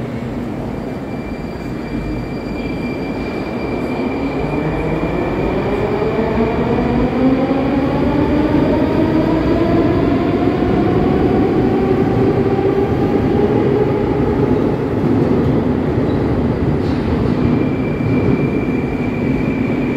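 Metro train pulling out of the station. Its electric traction motors give a whine that rises steadily in pitch as it gathers speed, over the rumble of the wheels on the rails, and the sound grows louder, then eases as the train leaves. A thin steady high tone is heard near the start and again near the end.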